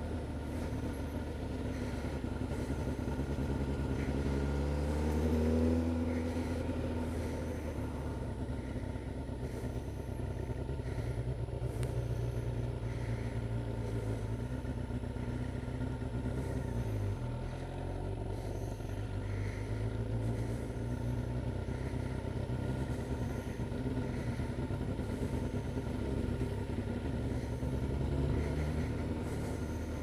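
Motorcycle engine running as the bike rides along, heard from the rider's seat with road and wind noise. About four seconds in it revs rising through a gear and breaks off, then runs steadily at low speed.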